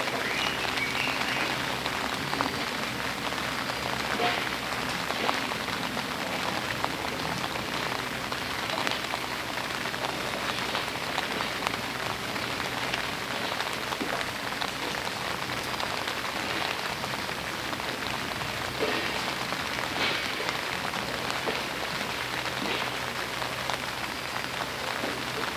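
Steady rain falling, a dense patter of drops with many small ticks.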